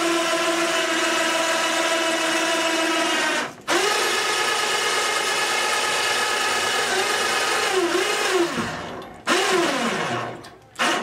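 Small electric motor running with a steady whine, cutting out briefly about three and a half seconds in, then spinning back up. It stops after a few more seconds and runs again in two short bursts near the end.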